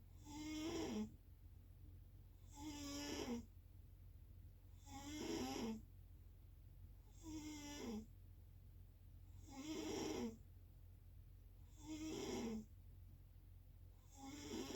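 Steady snoring: seven snores in a regular rhythm, about one every two and a quarter seconds. Each snore lasts roughly a second and drops in pitch at its end.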